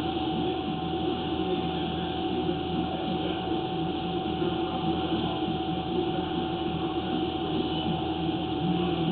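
Steady machine drone with a constant high whine running through it, and faint muffled voices underneath.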